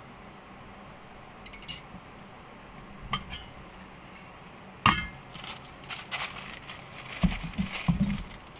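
Irregular light clinks and knocks, a few single ones and then a quick run of them near the end, over a steady background hiss.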